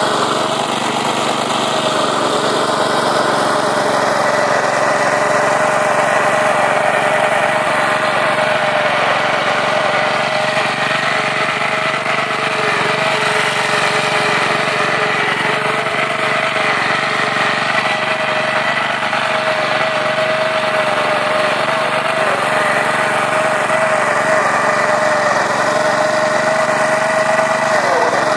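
Small petrol engine of a homemade Loplosh vertical-tine rotary cultivator running steadily at working speed while it tills soil, with a brief dip in pitch near the end.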